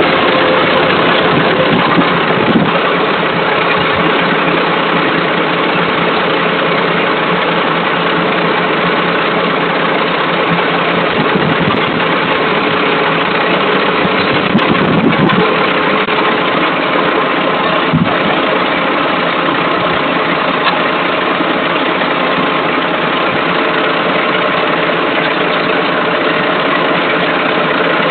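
An engine running steadily, a continuous mechanical drone, with a few brief knocks in the second half.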